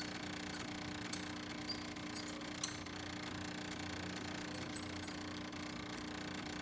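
Jura E8 super-automatic espresso machine running steadily as it brews an espresso shot, a constant mechanical hum. A few small clicks come between about one and three seconds in, the sharpest near two and a half seconds.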